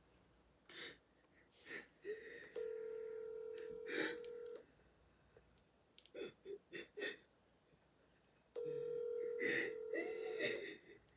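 Phone ringback tone through a smartphone's speakerphone: two steady two-second rings six seconds apart, the call ringing unanswered. Short stifled giggles come between and over the rings.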